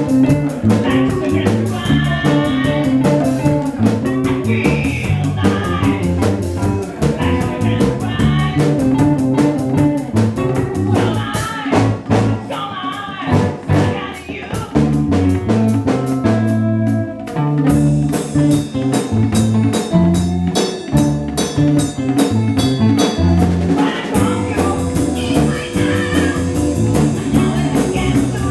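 Live band playing blues-rock with guitar, bass and drum kit and a singer, with a steady beat; the sound dips briefly about halfway through before the band comes back in.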